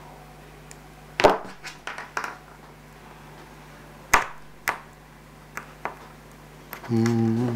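Sharp clicks and taps of a hobby knife blade working on a small hard-plastic model kit part over a cutting mat, as leftover gate nubs are trimmed off. There are a few separate clicks, the loudest about a second in and about four seconds in. Near the end comes a short, steady hum from a man's voice.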